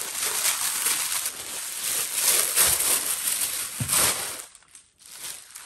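Pink tissue paper crinkling and tearing as a wrapped present is opened by hand, dying down about four seconds in.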